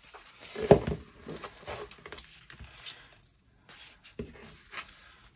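Kraft cardstock pocket cards handled and sorted by hand on a table: soft paper rustles and light taps, with a low thump just under a second in and a sharper tap about four seconds in.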